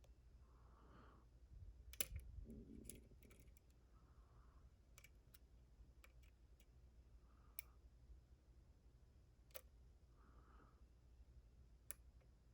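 Faint, irregular small metal clicks and ticks of a lock pick and tension wrench working the pins inside a brass pin-tumbler challenge lock during single-pin picking, with a little cluster of clicks about two seconds in. The lock is in a false set, and a pin gets overset.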